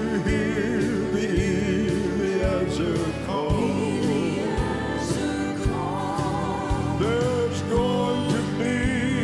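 Live gospel music: piano, organ and drums with a group of singers holding long notes with vibrato, over a steady beat.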